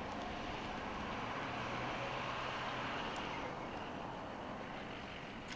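BNSF freight train rolling past, a steady rush of wheel and car noise that eases slightly about three and a half seconds in.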